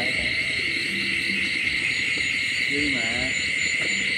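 Steady chorus of night insects, a dense high-pitched trill with a slight pulse. A short faint voice is heard about three seconds in.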